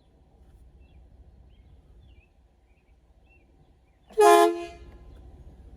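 One short air horn blast about four seconds in, lasting about half a second and tailing off briefly.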